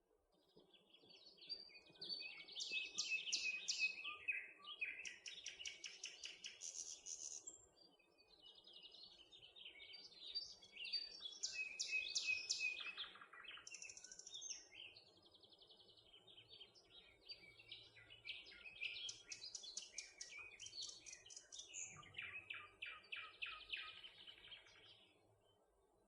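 Small songbirds singing in several phrases of rapid, repeated high chirps and trills, each lasting a few seconds, over faint steady background noise.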